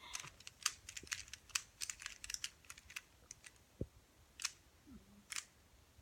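Rubik's Cube layers being turned by hand: a run of quick, irregular plastic clicks, dense for the first few seconds and then thinning to a few single clicks.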